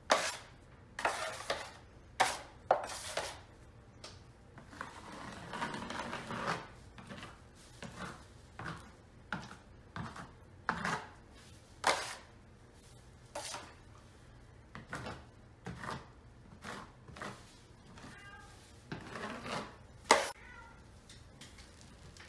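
A steel taping knife spreading and scraping wet joint compound across a drywall ceiling patch in irregular strokes, some sharp and loud. A cat meows briefly near the end.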